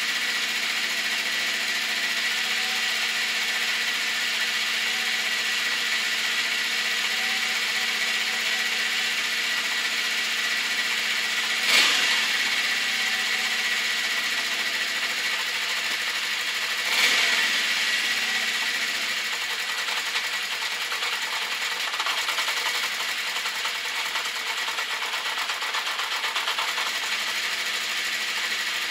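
Honda CB650 Custom's air-cooled inline-four engine running at idle with a rapid clicking, which the owner puts down to the valves on the right side (cylinders 3 and 4). Two short louder bursts come about 12 and 17 seconds in.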